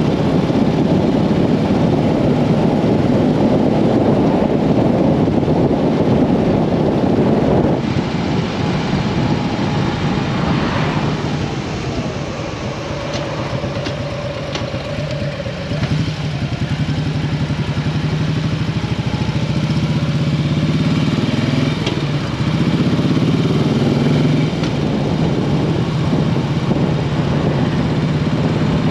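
Motorcycle engine running at road speed under heavy rushing wind noise that drops away about eight seconds in. The engine then runs more quietly through a slow stretch and accelerates again, its pitch rising in steps near the end.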